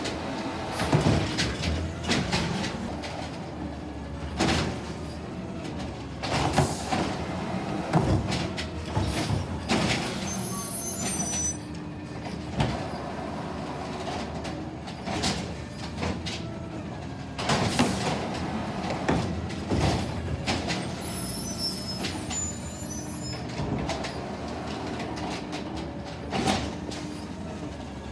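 2016 Peterbilt 320 automated side-loader garbage truck running, with repeated loud bangs as its arm lifts and dumps green waste carts and the lids slam open. Brief high squeals come twice, about a third and three quarters of the way through.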